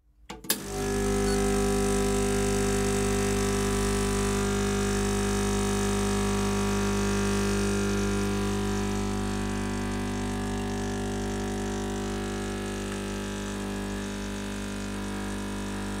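MiiCoffee Apex espresso machine's vibration pump buzzing steadily while pulling a shot of espresso. It starts suddenly about half a second in and gets a little quieter in the second half.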